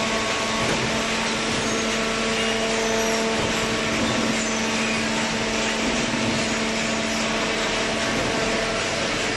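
Horizontal hydraulic cardboard baler running: a steady machine hum from its motor and pump over a constant mechanical noise.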